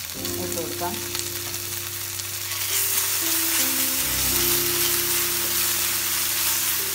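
Ginger, garlic, green chilli and curry leaf paste sizzling in hot oil with fennel seeds, stirred with a wooden spatula; the sizzle grows louder about three seconds in as the paste is spread through the oil.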